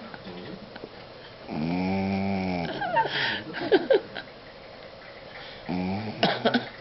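A pug snoring: a long, pitched snore that rises and falls about a second and a half in, then short snorts and clicks, and another snore starting near the end.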